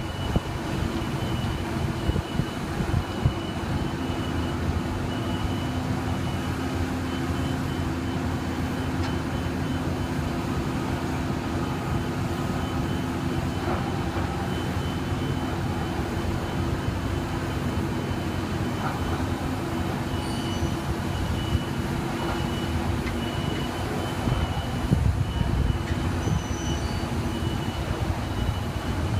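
Heavy construction machinery's diesel engine running steadily, with a thin steady high whine above it and a few knocks near the start and near the end.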